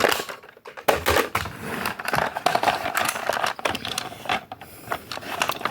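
Plastic Nerf blaster being handled and foam darts pulled out of it: a busy run of quick plastic clicks, rattles and rustles.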